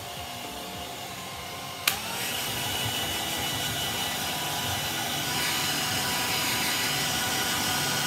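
Hand-held hair dryer running with a steady blowing whine. About two seconds in there is a sharp click, after which it runs louder.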